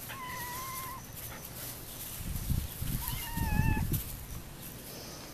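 Standard poodle puppy whining twice: a level, high whine about a second long at the start, and another, slightly falling one about three seconds in. Low rumbling thumps, the loudest sound here, come just before and under the second whine.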